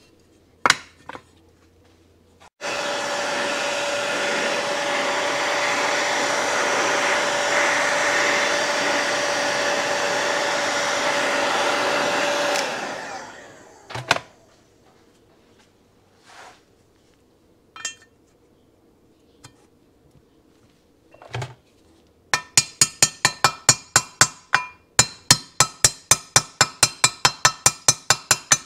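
Heat gun running steadily for about ten seconds, warming the aluminium crankcase's bearing boss so the bearing will go in, then switched off. After a few scattered knocks, a soft-faced mallet taps a bearing into the heated case, about four quick even taps a second, over the last six seconds.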